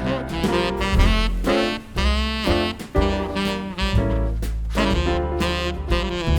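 Background jazz music with a saxophone carrying the melody over a walking bass.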